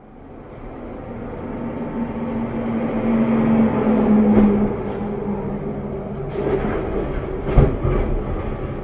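Heavy vehicle rumble building up steadily over several seconds, with a steady low hum, then a few short knocks and one sharp thump near the end.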